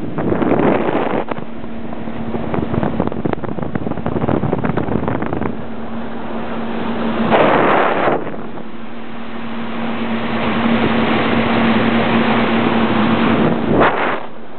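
Outboard motor of a CraigCat catamaran running steadily under way, a constant hum under heavy wind rushing over the microphone. Louder gusts come about half a second in, around seven seconds, and just before the end.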